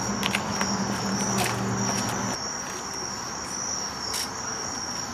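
Crickets chirping in a steady, continuous high trill. A low steady hum runs under them and cuts off a little over two seconds in, and a few faint clicks are scattered through.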